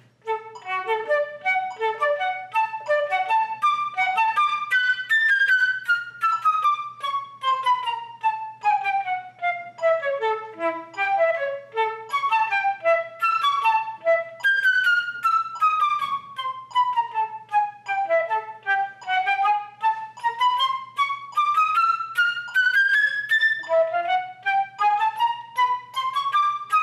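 Solo flute playing chromatic scale passages in a practice rhythm, with the sixteenth notes placed at the front of each group: quick, short notes that run down in pitch in long lines, then climb back up near the end.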